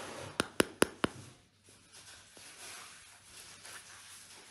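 A metal spoon working in a paper tub of chocolate ice cream: four quick sharp clicks in under a second, about half a second in, then faint handling noise.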